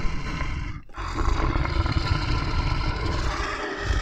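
Lion growling: a rough, continuous growl with a short break about a second in.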